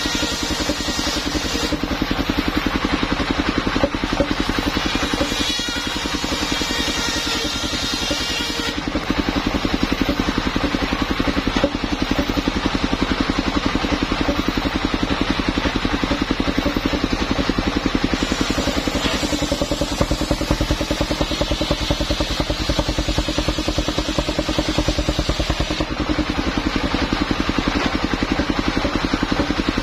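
Engine driving a portable circular sawmill runs steadily with an even pulsing beat. In roughly the first nine seconds the saw blade cuts through timber, adding a high rasping whine over the engine; after that the engine and spinning blade run on without a cut.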